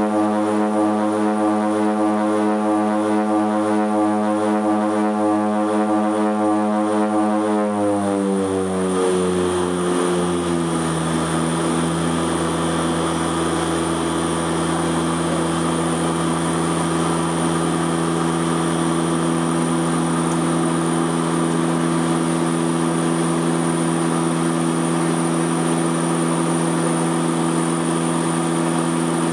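Cockpit drone of a de Havilland Canada DHC-6 Twin Otter's two PT6A turboprop engines and propellers in the climb. About eight seconds in the pitch slides down over two or three seconds and settles into a lower steady drone as the propeller rpm is brought back after take-off.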